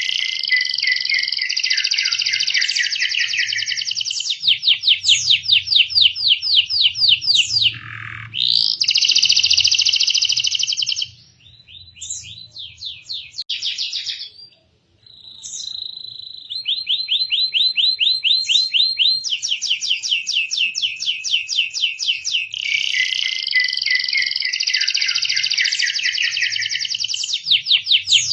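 Canary singing a long, fast song of rapid trills and rolling phrases, with a quieter, broken stretch about halfway through before the full trilling resumes.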